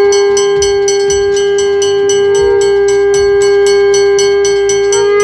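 A conch shell blown in one long, steady note that stops about five seconds in, with a small wobble in pitch midway. Under it, a hand bell rings rapidly, about five strokes a second.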